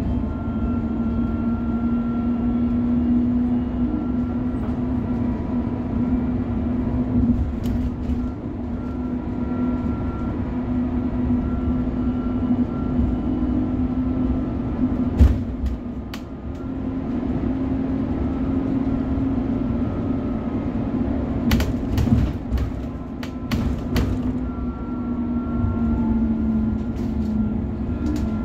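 MAN city bus on the move, heard from on board: a steady engine and drivetrain drone with a hum that wavers slightly. A few sharp clicks or rattles come about halfway through and again about three-quarters of the way in.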